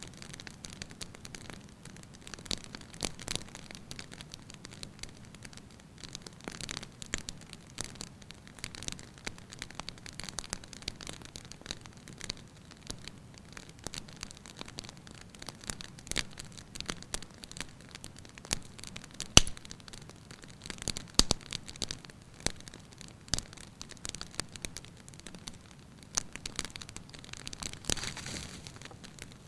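Wood fire burning in a fireplace, crackling with irregular sharp pops over a low steady hiss, a few louder pops about two-thirds of the way through.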